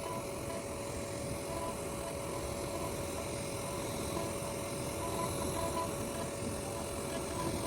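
CNC router spindle running steadily while a small end mill carves wood, a constant machine noise with a steady whine.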